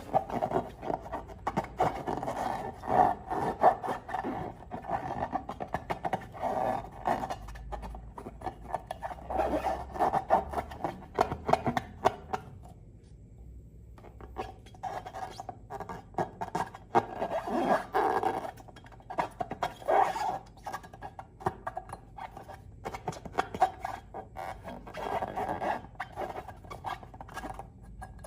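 Slime being squished and worked by hand, a dense run of sticky crackles and small pops with a short pause about halfway through.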